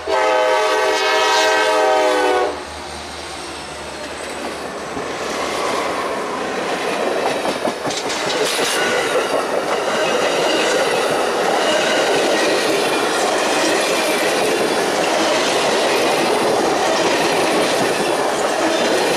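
Norfolk Southern diesel locomotive's horn sounding a chord that cuts off about two and a half seconds in, then the passenger train rolling past close by. The steady rumble of wheels on rail grows louder over the next few seconds and then holds.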